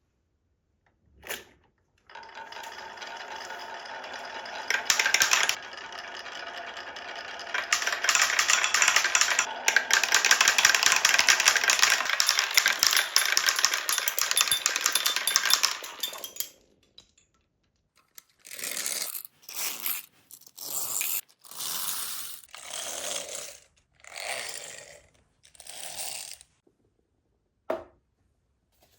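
Marbles rolling and clattering down a wooden wave-track marble run: a dense rattle starts about two seconds in, gets louder partway through and stops after about fourteen seconds. Then about seven shorter runs of a second or less follow one after another, with a single click near the end.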